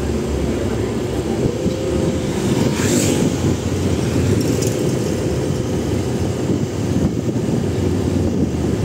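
Motorcycle riding steadily along a road: an even engine and road noise with no breaks.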